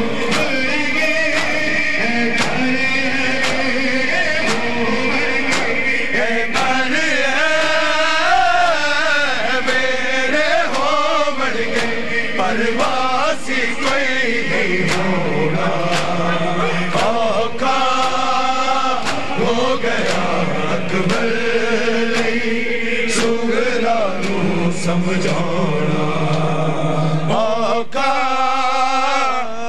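Male voices chanting a Punjabi noha, its mournful refrain taken up by many men. Sharp hand slaps on bare chests (matam) keep a steady rhythm under the chant.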